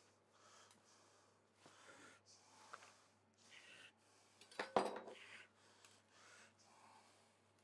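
Cling film rustling and crinkling as it is peeled back by hand from a salt-packed leg of venison, with a sharp clatter a little past halfway as a knife is set down on the stainless steel table.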